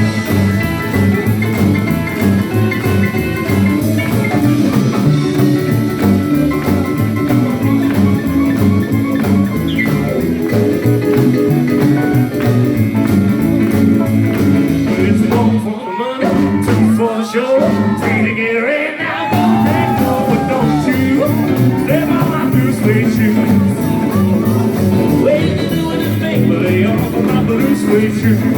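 Live rockabilly band playing an instrumental break. About 16 seconds in, the bass and drums drop out for a few seconds, leaving sliding, bending notes, and then the full band comes back in.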